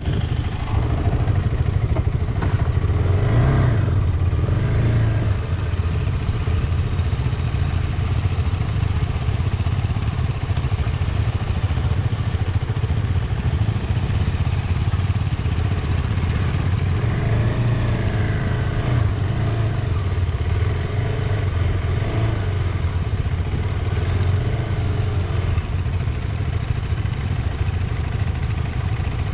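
KTM Adventure motorcycle's single-cylinder engine running steadily at low speed, with small rises and falls in pitch as the throttle is worked.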